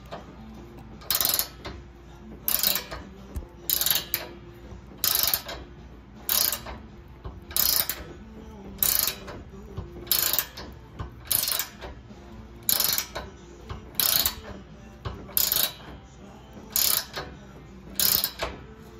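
Ratcheting combination wrench clicking on its return strokes while tightening a bumper mounting bolt. There is a short burst of clicks about every 1.3 seconds, around fourteen in all, in an even rhythm.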